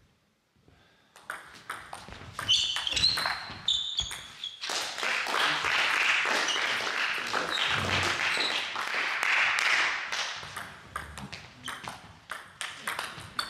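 Table tennis rally: the celluloid-type ball is struck by the bats and bounces on the table in sharp clicks, with short squeaks typical of sports shoes on a hall floor. A louder few seconds of voices and noise fill the middle.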